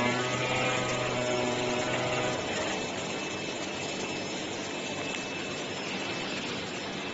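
AOKE DCZ70 flatbed cutting plotter running while V-grooving grey board: a steady motor whine over a steady rushing noise. The whine stops about two and a half seconds in, and the rushing noise with a faint high tone carries on.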